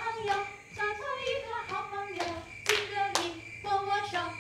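A high voice singing a short, sing-song melody in broken phrases, with two sharp hand claps about half a second apart a little past the middle.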